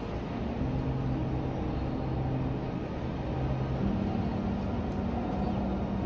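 Wind gusting across the microphone with a heavy low rumble, over the steady hum of a vehicle engine from street traffic, which steps up in pitch about four seconds in.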